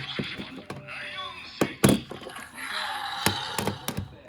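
Hard plastic clicks and knocks of a DX Seiken Swordriver toy transformation belt being handled, a loud one about two seconds in and several more near the end, over the toy's wavering electronic sound effects.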